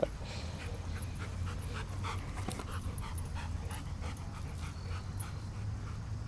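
Dog panting in irregular short breaths over a steady low hum.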